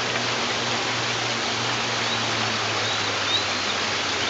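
Steady rushing of a creek's running water, with a few faint high chirps about halfway through.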